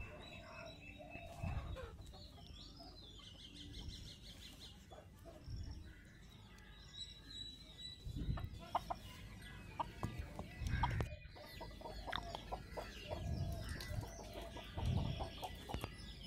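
Faint bird calls, clucking like backyard hens, with occasional soft low thuds as raw chicken drumsticks are set into a metal bowl.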